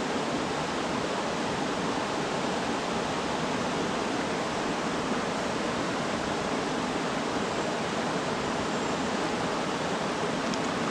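Mountain creek water rushing over rocks: a steady, even rush that does not change.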